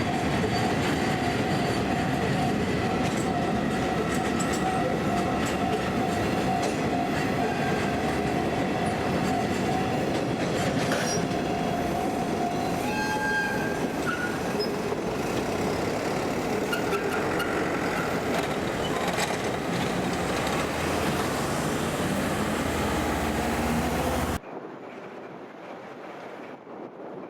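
A freight train of wagons passing close by on the cement works' private line, wheels clacking over the rails, with a steady tone running through it that steps up in pitch about halfway. Near the end the train sound cuts off abruptly, leaving quieter wind noise.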